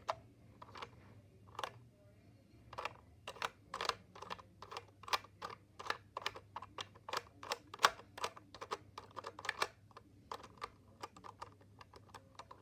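LEGO plastic pieces clicking and clacking as the tiles of a homemade sliding puzzle are pushed about and a stuck tile is worked at: an irregular run of sharp clicks, fastest around the middle.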